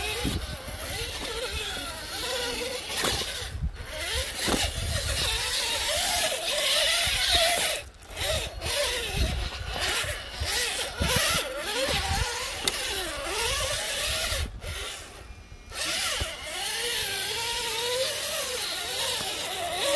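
The electric motor and gear drivetrain of a 1/8-scale RC rock crawler whining as it crawls. The pitch rises and falls with the throttle, and it cuts out briefly a few times.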